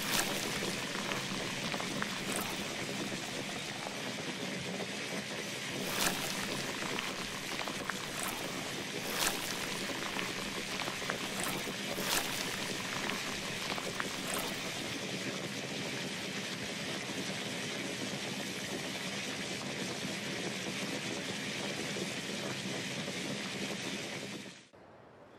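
Sugar syrup boiling and bubbling in a saucepan while an apple on a wooden skewer is turned through it to coat it in candy, with a few sharp clicks scattered through the first half. The sound cuts off about a second before the end.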